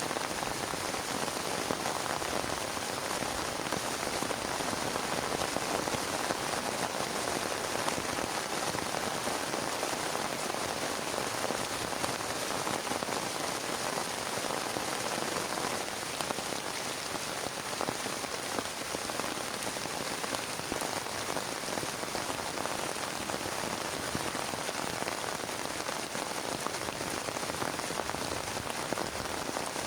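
Heavy rain falling steadily and evenly, with no thunder.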